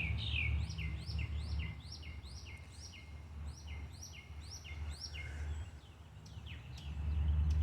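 A songbird singing a steady series of quick, evenly spaced chirps, about two a second, each sweeping up high and then dropping, over a low steady rumble.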